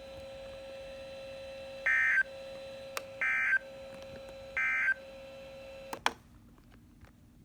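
Emergency Alert System end-of-message code: three short bursts of screechy digital data tones, a little over a second apart, signalling the end of the tornado watch alert. A faint steady tone runs underneath, and a sharp click about six seconds in cuts it off.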